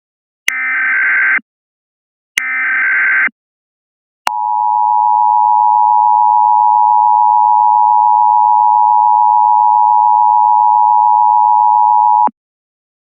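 Two bursts of Emergency Alert System SAME header data tones, each about a second long, the digital code that announces an alert's event, area and times. About four seconds in, the EAS two-tone attention signal (853 and 960 Hz together) comes in and holds steady for about eight seconds, then cuts off abruptly.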